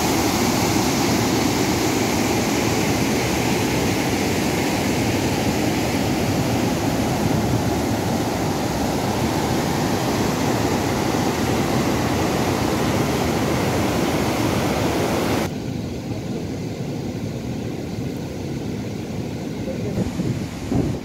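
Loud, steady rushing of white water pouring over a rocky mountain waterfall. It drops suddenly to a quieter rush about two-thirds of the way through.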